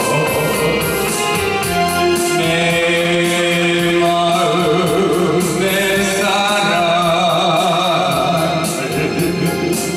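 A man singing through a handheld microphone and PA over instrumental accompaniment with a steady beat, holding long notes with vibrato.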